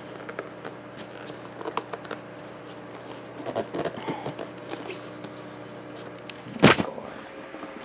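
Handling noises during unboxing: scattered light taps and rustles over a faint steady hum, with one louder thump about six and a half seconds in.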